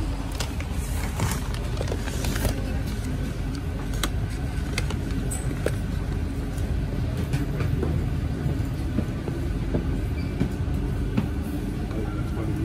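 Inside an RER commuter train underground: a steady low rumble with scattered clicks and rattles from the carriage.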